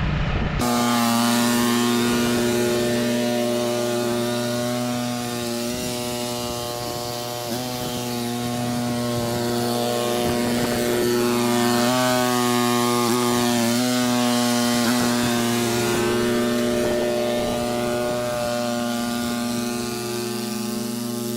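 Cub Cadet 2X 30-inch EFI two-stage snow blower's engine running steadily at working speed, its pitch dipping briefly a few times as it takes on load.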